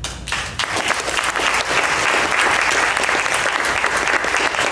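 A roomful of people applauding: many hands clapping, starting suddenly and holding steady.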